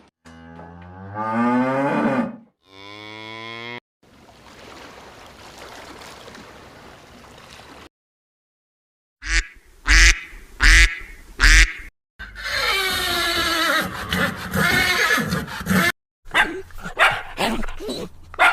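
A run of separate farm animal calls, with cattle mooing among them: pitched calls near the start, a pause, then loud short calls, one long call and a quick series of short calls near the end.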